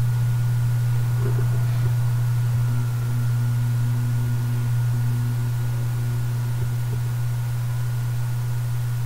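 Steady low electrical-sounding hum with a faint thin high tone above it.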